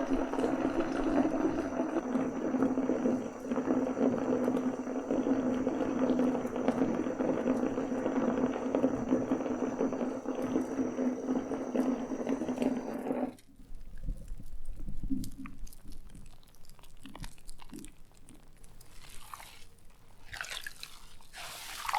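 Bath tap running, water pouring steadily into a filling bathtub, then stopping abruptly about 13 seconds in. After that, scattered drips and small splashes and sloshes of water in the tub.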